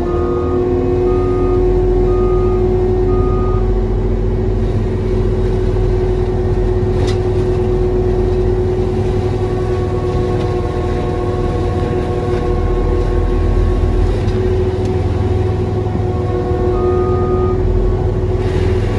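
Cat 299D3 XE compact track loader's diesel engine running hard with the HM418C mulcher head spinning, a steady whine over the engine's rumble while mulching brush. A backup alarm beeps steadily for the first few seconds and again briefly near the end, and there is one sharp tick about seven seconds in.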